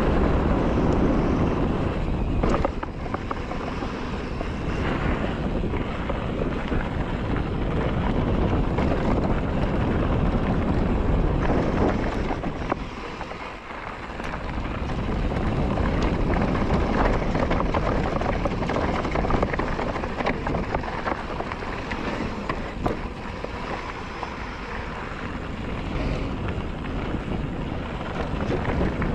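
Mountain bike riding down a trail. Wind rushes over the microphone along with the rolling noise of the bike, and a few sharp knocks come from bumps. The rush eases for a moment about halfway through.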